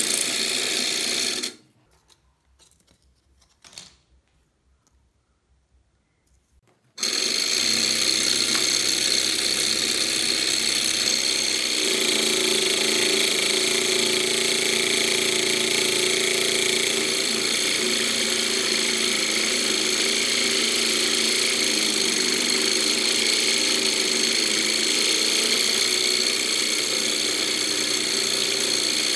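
Homemade scroll saw, its spiral blade driven by a 775 12 V DC motor, running and cutting wood. A steady high whine with the rasp of the cut; the sound breaks off about a second and a half in, and comes back about seven seconds in and runs steadily while the blade cuts a laminated board.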